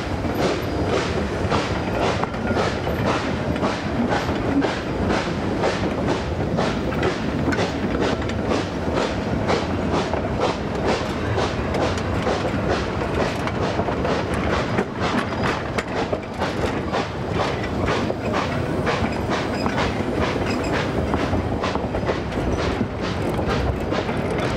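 Narrow-gauge freight cars rolling past, their wheels clicking steadily over the rail joints, a few clicks a second.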